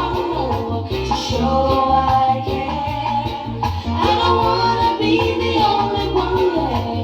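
A reggae song with sung vocals over a repeating bass line and steady ticking high percussion.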